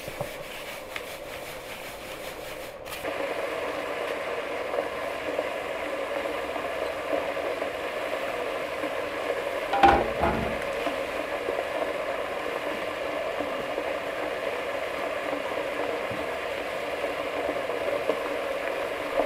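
Flour being sifted through a metal sieve onto a steel tray, a soft rubbing rasp, for the first few seconds. Then a steady rushing noise, with one short clatter about ten seconds in.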